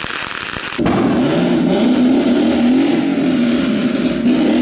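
A car engine cuts in loudly about a second in, after a steady hiss, and is revved, its pitch wavering up and down.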